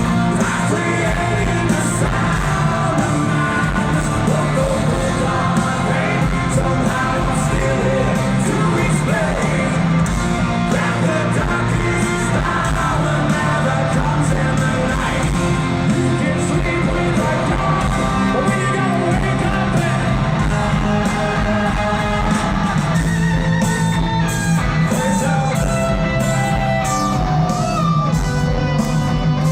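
Live hard-rock band playing loud, with distorted electric guitars, bass and drums, and singing or yelling over the top.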